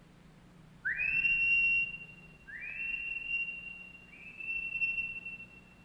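A man whistling three times, each note sliding up and then held for about a second, each fainter than the one before: a signal whistle.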